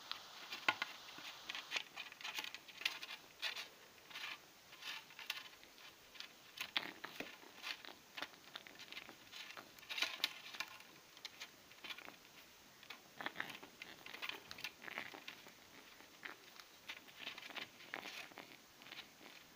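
Young pigeon repeatedly pecking and biting at a hand: a faint, irregular run of quick beak taps and scuffling rustles.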